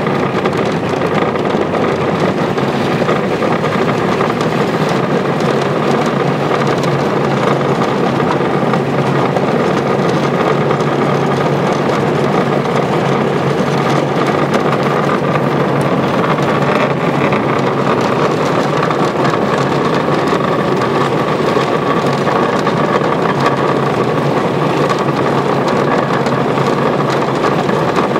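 Miniature railway locomotive's small engine running steadily as the train travels along the track.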